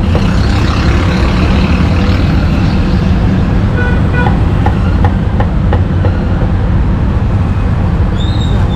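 Steady low rumble of road traffic and engines, with a few light knocks of a cleaver on a wooden chopping block in the middle and a brief high squeal near the end.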